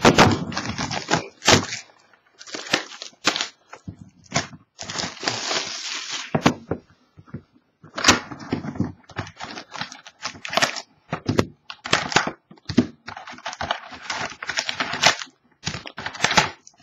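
Plastic shrink wrap and cardboard packaging of a sealed trading card box being torn open and handled: irregular crackling, crinkling and tearing with sharp cracks.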